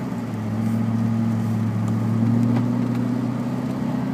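Car engine and road noise heard from inside the cabin. The engine hum drops in pitch right at the start, then climbs slowly.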